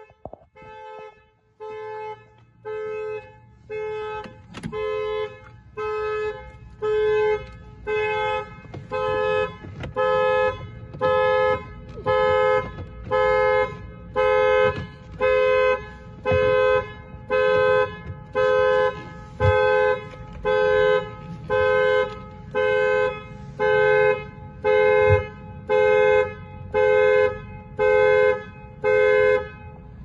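Car alarm sounding the car's two-tone horn in even blasts, about one a second, getting louder over the first several seconds: the anti-theft alarm set off by the door being opened without a valid key.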